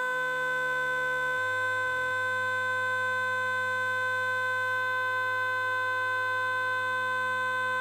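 A steady electronic tone, a sine-like buzz held at one pitch throughout, with low synthesized notes underneath that change pitch every second or so.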